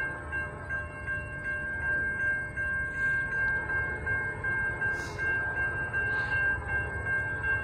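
Railroad grade-crossing warning bell ringing steadily as a train approaches, over a low rumble.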